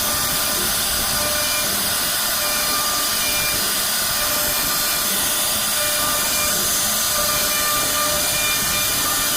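CNC router spindle carving wood: a steady hiss of cutting with a thin, even whine running through it.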